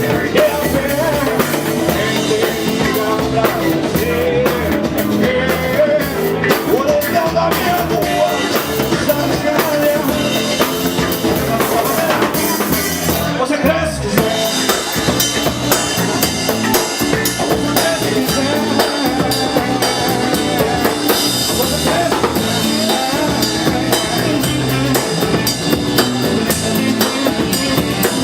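Live samba-rock band playing an instrumental passage: a drum kit keeps a busy beat under a gliding lead melody line.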